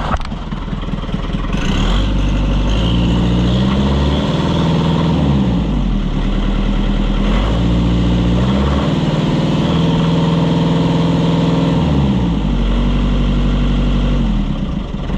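White 700 tractor engine running, revved up and dropped back to idle about four times as the newly fitted throttle cable is worked.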